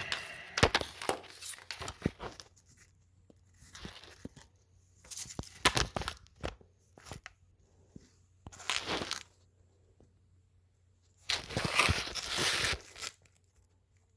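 Irregular bursts of scraping, rustling and clicking as parts are handled and set in place by hand, with quiet gaps between the bursts.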